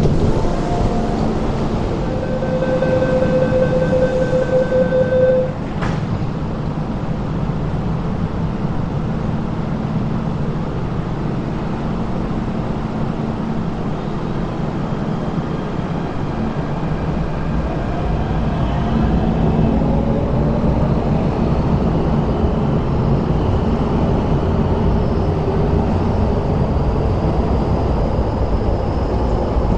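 Beeping door-closing warning for about three seconds, then an MTR Tseung Kwan O Line train pulling out of the underground station: a steady rumble with its traction motors whining upward in pitch as it accelerates.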